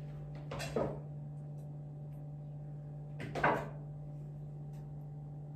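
A kitchen door opened and then shut about three seconds later, two short, dull sounds over a steady low hum.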